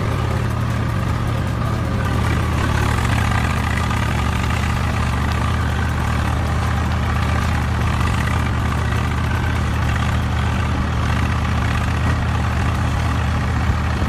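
Engine idling steadily with a low, even drone, in the manner of a tractor at idle; it cuts off abruptly at the end.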